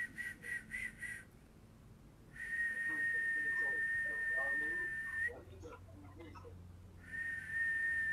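A person whistling a single steady high note: four or five short toots near the start, then two long held notes of about three seconds each with a pause between them, the last ending in a small upward flick. In the healer's practice, the whistled sound is used to send healing energy.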